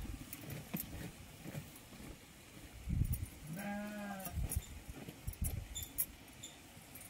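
A goat bleats once, a short call of under a second about halfway through, among low knocks and handling noises.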